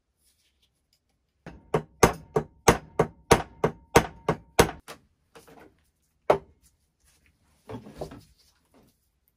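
A small hammer striking the pump's clamped steel handle fitting: a quick run of about ten metal-on-metal blows, about three a second, with a faint metallic ring under them. A few scattered knocks follow as tools and parts are handled.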